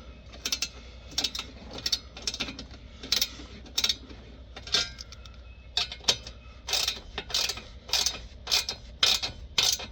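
Hand ratchet wrench clicking as it is worked in short strokes on a bolt, a sharp click every half second to second.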